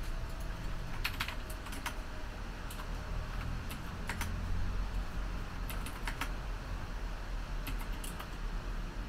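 Light clicks at an irregular pace, single and in small clusters, over a steady low hum.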